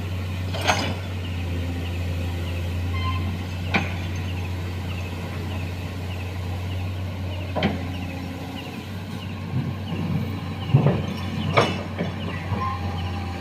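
Komatsu excavator's diesel engine running steadily with a low drone, broken by about five sharp knocks of the machine working.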